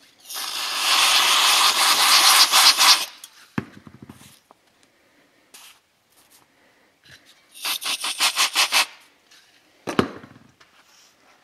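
Handling noise from a bearing being worked in a leather work glove while thin shim stock is fitted around it. There are two spells of rapid rasping rubbing, the first about three seconds long, the second shorter about two-thirds of the way in, with a couple of dull knocks.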